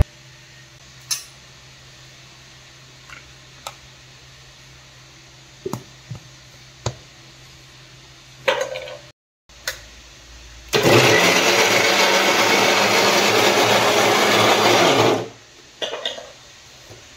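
Electric mixer grinder chopping jackfruit pieces in its steel jar: a few light knocks as the jar and its plastic lid are handled, then the motor runs for about four seconds and stops sharply.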